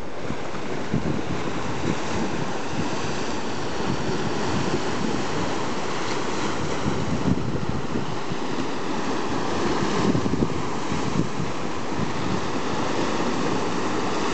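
Lake waves breaking and splashing over a rocky shoreline in a steady wash of surf, with wind buffeting the microphone. The surf swells louder about ten seconds in.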